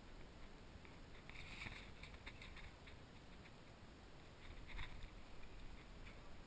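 Near silence with a low rumble and a few faint rustles or scuffs: a cluster about a second and a half in, and one more near five seconds.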